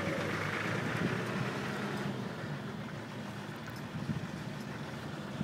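A small utility vehicle's engine idling steadily with a low, even hum.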